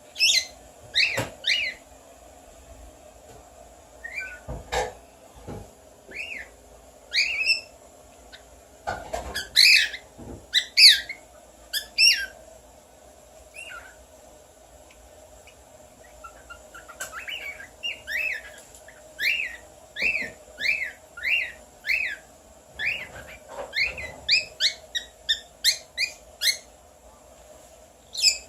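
Pet bird whistling in mimicry of human whistles: short chirpy whistled notes in scattered groups, then a long run of quick, evenly spaced notes, about two a second, in the second half. A few short thumps fall between the whistles.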